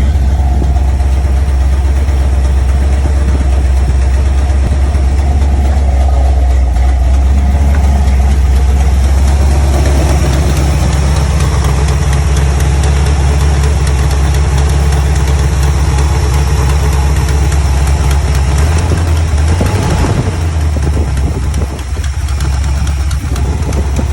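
Chevrolet 350 small-block V8 running at idle with a knocking noise, which the owner cannot place between a rod knock, a rocker arm and the flywheel. The engine note shifts a little about twenty seconds in.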